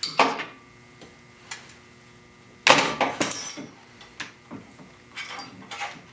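Metal clicks and clinks from a drill bit and slip joint pliers worked against a Hilti drill's keyed chuck, used in place of a lost chuck key to turn the chuck, with one louder metallic rattle about three seconds in.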